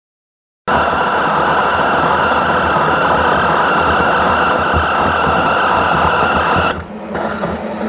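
Manual Mazak lathe turning a large 17-4 PH stainless steel part: loud, steady machining noise with a high, hissing ring. It starts abruptly under a second in. About seven seconds in, the sound drops and the high ring stops, leaving the lathe's lower running noise.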